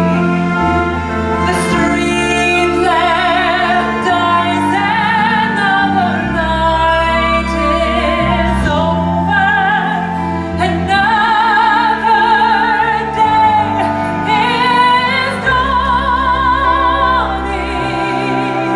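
A woman singing a slow theatre ballad solo in an operatic style, holding long notes with a wide vibrato, over sustained low accompaniment.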